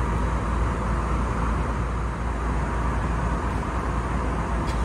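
Steady cabin noise inside an Airbus A320neo airliner: an even, unbroken rush of air with a deep low hum underneath.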